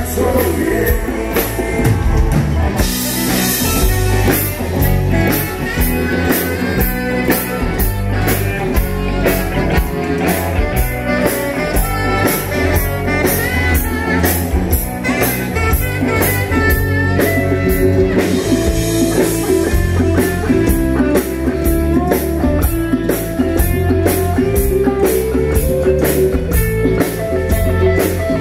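Live garage rock band playing with a steady drum beat, bass guitar, electric guitars and a tenor saxophone.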